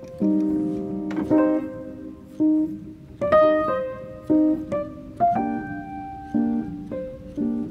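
Background piano music: chords and single notes struck about once a second, each ringing on and fading.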